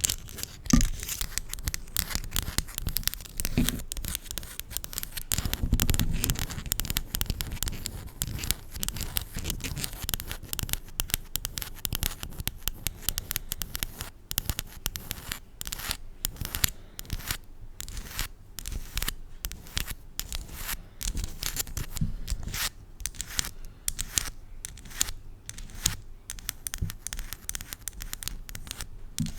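Long nails scratching and clicking on a plastic spiral fidget toy close to the microphone: a dense run of rapid, irregular scratchy clicks that becomes more spaced out in the second half.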